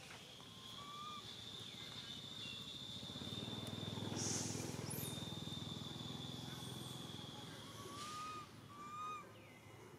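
Outdoor ambience: a steady high-pitched drone with a short break in the middle, a few brief rising bird chirps near the start and again near the end, and a low rumble that swells through the middle.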